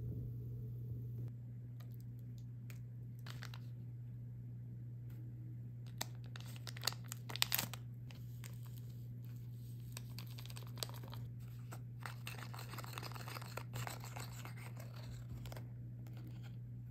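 A small foil-lined powder sachet from a Popin Cookin candy kit torn open, with a few sharp rips about six to eight seconds in as the loudest sound, then a longer stretch of soft crinkling of the packet. A steady low hum runs underneath.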